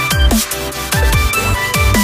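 Electronic background music with a steady fast beat; each beat carries a deep bass note that falls in pitch.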